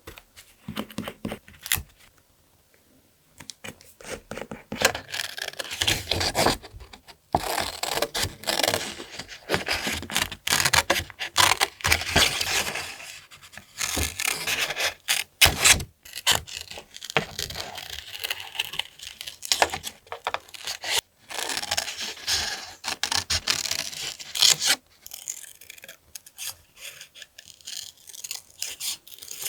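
Paper being torn and rubbed by hand: a few light clicks, then a long run of rasping tears and scrapes that eases off near the end.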